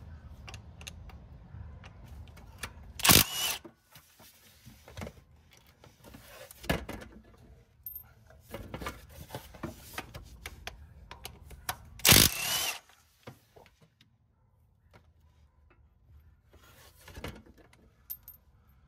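Socket wrench with a 12 mm socket loosening the oil filter housing bolts: scattered metal clicks and tool handling, with two short, loud clattering bursts, about three seconds in and again about twelve seconds in.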